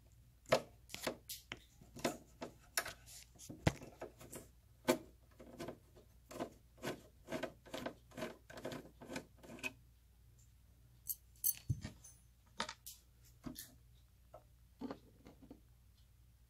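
Hand screwdriver turning a small screw out of a circuit-board mounting inside a metal inverter case: a run of light metallic clicks, about three a second, that stops about ten seconds in and is followed by a few scattered clicks.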